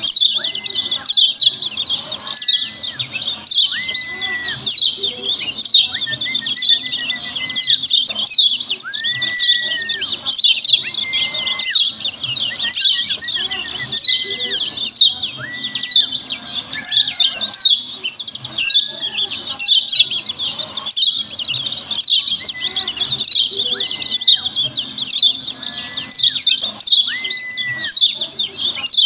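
Kecial kuning, a yellow white-eye, giving its rapid, noisy 'ciak ciak' chattering calls without a break, rising to louder bursts about once a second. Short, flat, lower whistles recur every second or two beneath the chatter.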